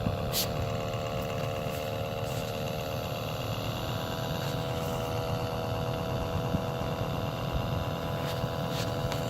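A machine running with a steady, pitched hum over a low rumble, its pitch shifting slightly a few seconds in. A sharp click comes under a second in, with a few fainter clicks near the end.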